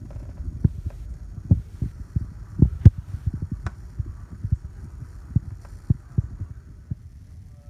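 Irregular dull thumps, about one or two a second, over a low rumble, dying away near the end: handling noise from the recording device being held and moved close to the microphone.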